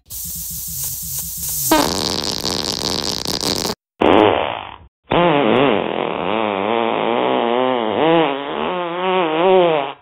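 Fart sound effects. First a long hissing 'gas leak' fart lasting almost four seconds. After a brief gap comes a short fart falling in pitch, then a long warbling 'motorboat' fart about five seconds long whose pitch wobbles up and down.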